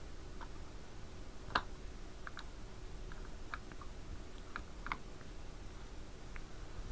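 About a dozen light, irregular clicks and taps of small hard parts being handled, the sharpest about a second and a half in, over a faint steady hum.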